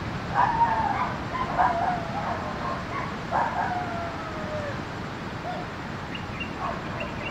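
A domestic animal crying several times over a steady background hiss, each cry drawn out and falling in pitch; the longest comes about three and a half seconds in.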